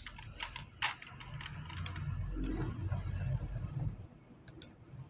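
Computer keyboard and mouse clicks picked up by the narrator's microphone: a few sharp clicks in the first second and several light ones near the end. A low rumble runs under them through the middle seconds.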